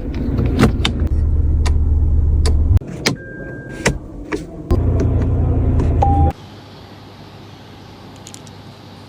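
Toyota Land Cruiser Prado's electric power window motor running in two stretches, stopping abruptly about three seconds in and again after about six seconds. Sharp clicks and two short electronic beeps, the second lower than the first, come in between.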